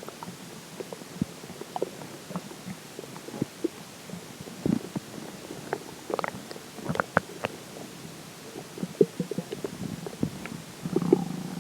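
Human stomach gurgling after drinking water: a string of short pops, squeaks and bubbling gurgles, busiest in the middle, with a longer low rumble starting near the end.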